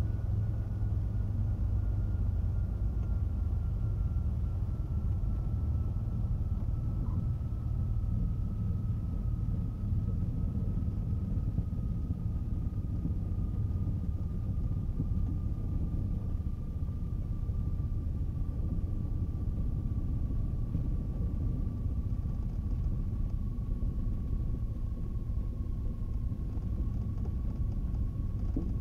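Cessna 310's twin piston engines at low power, with a steady low rumble heard from inside the cockpit as the plane rolls out on the runway after landing. A thin whine slowly falls in pitch as the aircraft slows.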